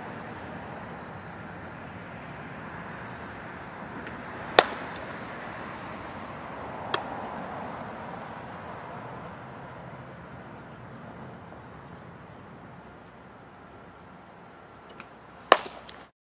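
Fastpitch softball smacking into a catcher's mitt, two loud sharp pops about eleven seconds apart, with a fainter smack in between, over a steady background hum.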